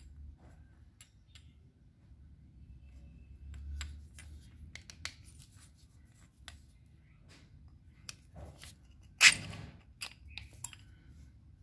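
Steel hand tools being handled on a table: scattered light metal clicks and clinks, with one loud clack about nine seconds in as a tool is set down.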